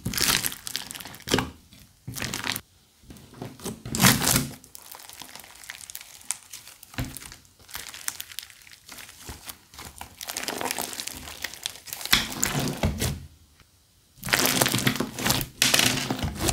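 Crunchy slime being squeezed and worked by hand: irregular bursts of crackling and crinkling, with short pauses between handfuls.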